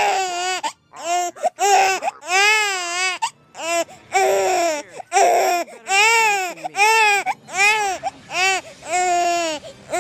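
Infant crying loudly in a steady run of short wails, each rising and falling in pitch and lasting under a second, with quick catches of breath between; a few cries near the middle turn rough and strained.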